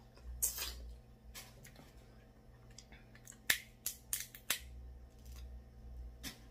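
Snow crab leg shells cracked and snapped apart by hand: a string of sharp cracks, the loudest about halfway through, followed at once by a quick run of four more.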